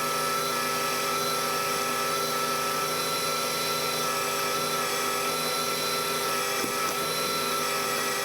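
Metal lathe running steadily while a carbide insert turns down a hydraulic fitting blank toward 18 mm: a steady machine hum with several held tones over an even cutting hiss.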